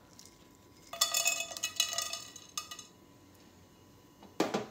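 Whole spices (cardamom pods, peppercorns, cloves, cinnamon, bay leaf) tipped from a glass bowl and clattering into a metal pot of oil, a quick run of small hits with a light ringing for about two seconds. A second short clatter comes near the end.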